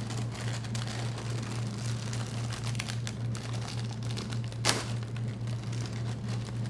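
Plastic inner bag of a cereal box crinkling as it is pulled at and torn open by hand, with one sharp pop of the seal splitting about two-thirds of the way through, over a steady low hum.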